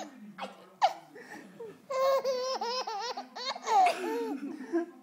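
Young baby laughing: a short rising squeal about a second in, then from about two seconds in a run of quick, high-pitched bursts of laughter.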